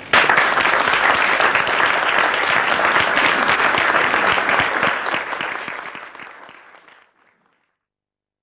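Audience applauding, a dense crowd of hand claps that starts abruptly at the close of a speech and fades out near the end.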